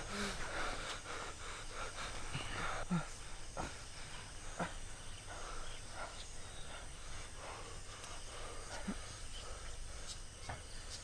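Soft fabric rustling and a few scattered small clicks as a hand searches the top pocket of a camouflage jacket, over quiet outdoor background noise.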